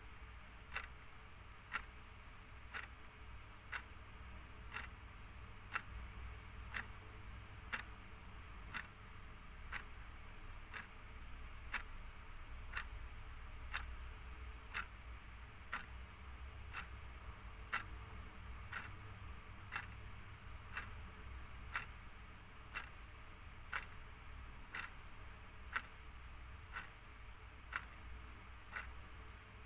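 Clock ticking steadily, about one tick a second.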